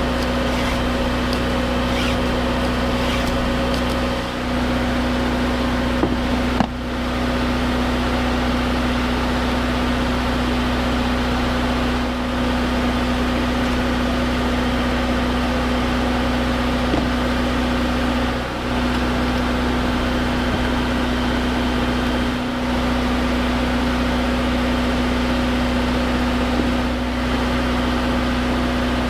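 A machine running steadily with an even, unchanging hum, briefly dipping a few times.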